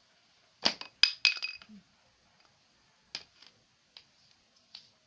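Small hard objects clinking and knocking together as they are handled and moved about: a quick cluster of ringing clinks about a second in, then a few lighter taps.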